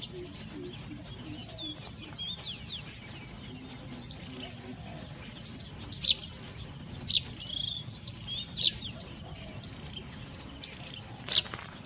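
Small birds chirping and twittering, with four loud, sharp call notes in the second half.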